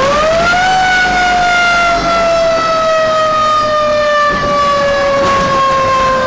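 Fire truck siren heard from inside the cab. It winds up quickly in the first second, then slowly falls in pitch as it runs on.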